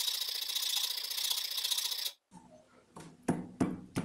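Wood rasp filing the end of a maple axe handle: a steady, dry rasping that stops abruptly about two seconds in. Then a few sharp knocks, the loudest three near the end, as the steel axe head is struck onto the handle's end.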